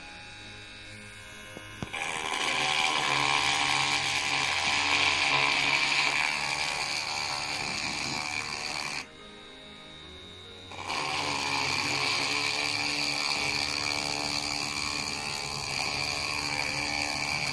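Mini cordless rotary tool running with a drill bit pressed into the material, a steady whirring grind about seven seconds long, a pause of about two seconds, then a second run of about the same length. The bit is barely cutting: it leaves only a small hole.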